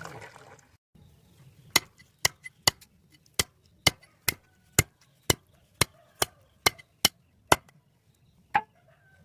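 Raw chicken being chopped into curry pieces: about a dozen sharp, evenly spaced chops, roughly two a second, starting a couple of seconds in, then one last chop after a short pause near the end.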